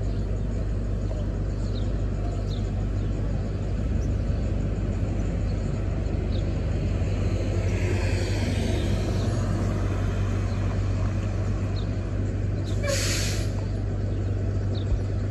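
TTC city bus engine running steadily in a low drone, with a stretch of air hiss around the middle and a short, sharp blast of air-brake hiss about thirteen seconds in.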